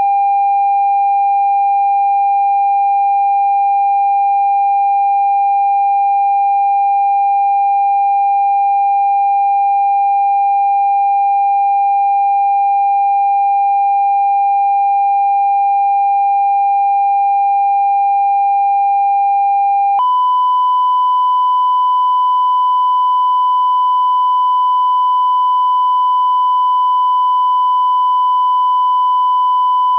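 Generated speaker test tone: a steady, pure electronic tone that jumps abruptly to a slightly higher pitch about twenty seconds in and holds there.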